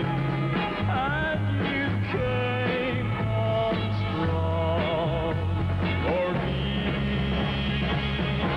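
A male pop singer sings a 1960s pop ballad over a band accompaniment.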